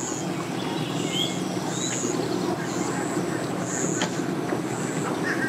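An engine idling steadily, with short high chirps repeating about once a second over it.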